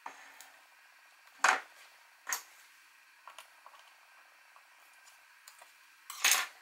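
Three sharp clacks, about a second and a half in, a second later and near the end, with a few faint ticks between: small craft magnets and a pink hand tool being handled and set down on a paper album page on a tabletop.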